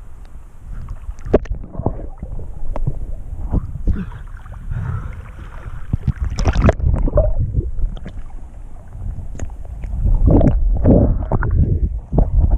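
Muffled water sloshing and gurgling against a camera held underwater in a river, with scattered knocks and bumps as it moves. It grows louder around the middle and again near the end.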